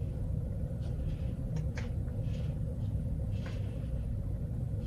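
Steady low background rumble, with a few faint, brief rustles over it.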